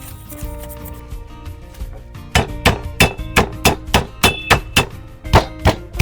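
Knife chopping on a cutting board in a steady run of sharp strokes, about three a second, starting about two seconds in, over soft background music.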